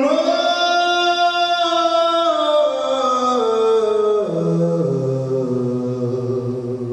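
Male jazz baritone voice singing unaccompanied: one long held high note that steps down through a descending run to a low note about four seconds in, slowly fading.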